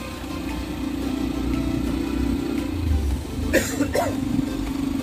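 Motorcycle engine running steadily while the bike is ridden along a road, with two short sharp sounds about three and a half seconds in.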